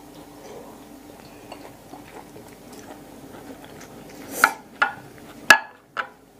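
Close-up chewing of a mouthful of raw beef liver, quiet at first, then a few loud, sharp wet smacks and clicks in the last two seconds.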